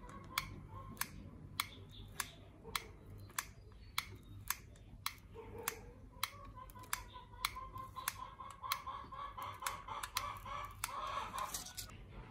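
A run of sharp clicks, about two a second and a little quicker in the second half, over a faint wavering tone that grows louder near the end.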